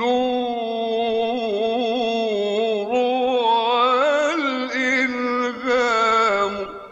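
An Arabic devotional song: a solo voice draws out one long, ornamented phrase with wavering pitch and no words, then fades out near the end.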